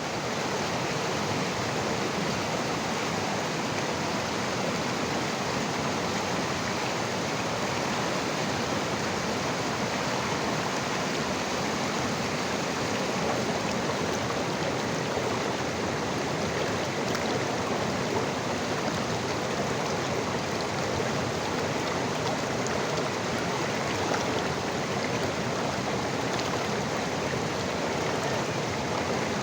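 River water flowing steadily, a continuous even rush of moving water.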